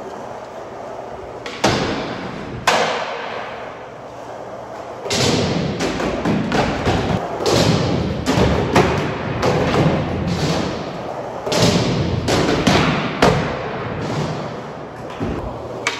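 Skateboard on smooth concrete: two sharp board impacts in the first few seconds, then from about five seconds in a steady rolling rumble of the wheels, broken by repeated clacks and knocks of the board.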